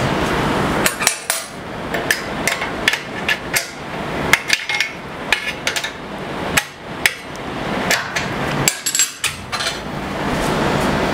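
Hand work on the metal fence-rail mounting hardware of a table saw: irregular sharp metallic clicks and knocks, with stretches of scraping noise between them.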